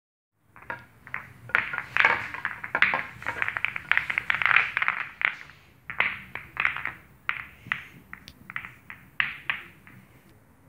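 Pool balls clacking against one another as they are handled: quick, dense clicks for the first few seconds, then slower, scattered clicks that stop shortly before the end.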